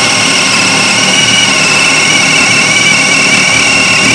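Ryobi P251 brushless hammer drill in drill mode, speed 2, driving a spade bit down through a wooden beam under load, its motor running with a loud, steady whine.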